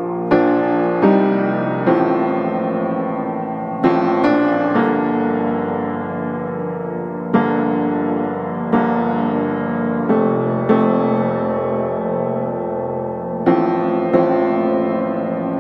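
Background piano music: chords struck every second or few seconds, each ringing out and fading before the next.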